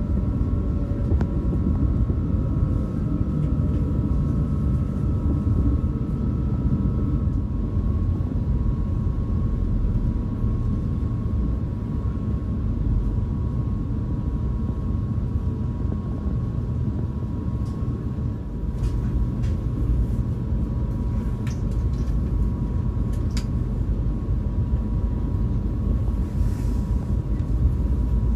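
KTX-Cheongryong high-speed train heard from inside the car as it runs slowly into a station: a steady low rumble with a faint steady whine over it, and a few light clicks in the second half.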